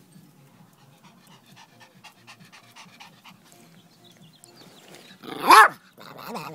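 Pomeranian panting in quick, faint breaths, then a loud drawn-out vocal call that rises and falls in pitch about five seconds in, followed by a shorter, quieter call near the end.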